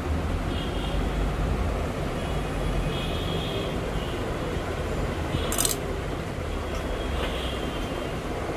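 Steady low background rumble, with a single sharp click about five and a half seconds in as the plastic toy bathtub is handled.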